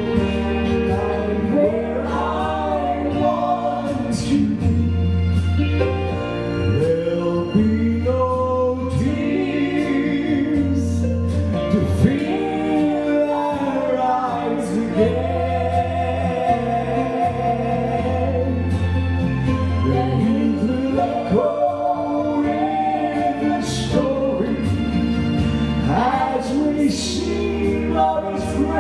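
Gospel song: singing over instrumental accompaniment with a steady bass line and occasional cymbal strokes.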